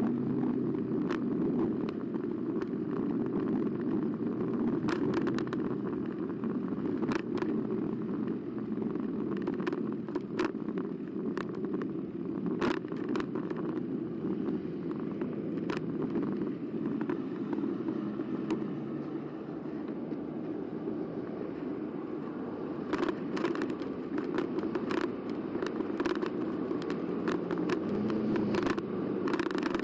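Carbo X eBike riding along, heard from the bike-mounted camera as a steady rumbling noise. Scattered sharp clicks and ticks come through, clustered in a few stretches, especially near the end.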